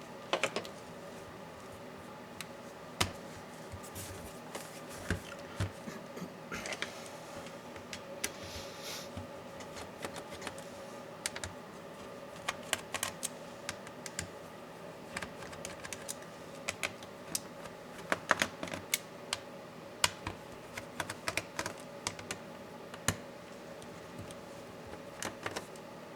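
Irregular clicks and taps of tools and plastic and metal laptop parts being handled during a hands-on laptop disassembly, with a short scraping sound about seven seconds in. A faint steady hum sits underneath.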